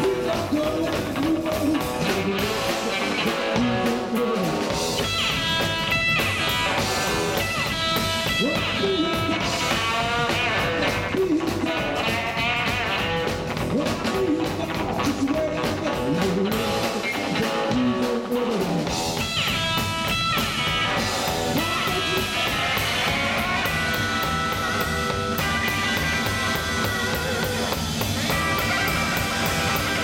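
Live rockabilly band playing: an electric hollowbody guitar plays quick runs of lead notes over the drum kit.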